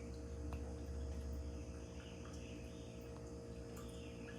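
Quiet background: a steady low hum with faint high chirping and a few light ticks, likely from handling the boat.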